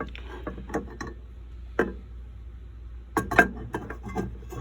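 Scattered light clicks and clinks of a turntable's aluminum platter being handled and set down onto the deck, with a louder cluster of knocks about three seconds in, over a low steady hum.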